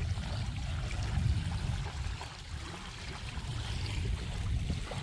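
Wind buffeting the microphone in a low, uneven rumble, with small waves lapping on a sandy lake shore.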